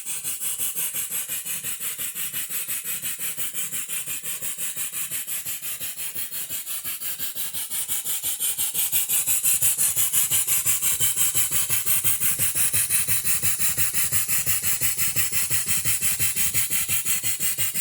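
Half-horsepower Sipp steam engine running a small table saw, the engine's beats giving a steady pulse of about five a second under the whirr and rasp of the saw blade, which grows louder about halfway through.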